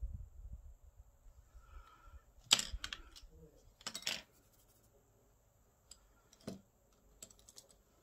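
Small makeup items being picked up and handled on a table: a few sharp clicks and knocks, the loudest about two and a half and four seconds in, with some lighter taps later and a low rustle of movement near the start.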